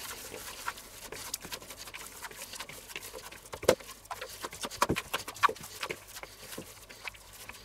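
Gloved hands kneading raw minced-meat mixture in a bowl: irregular wet squelching and smacking, with a few louder smacks in the middle.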